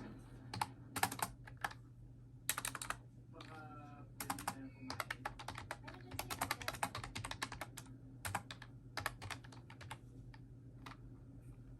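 Typing on a Bluetooth backlit computer keyboard: quick runs of key clicks with short pauses between them.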